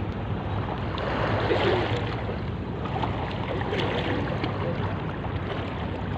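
Shallow seawater lapping and sloshing close by, over a steady low rumble, with a few small splashes about four seconds in and faint distant voices.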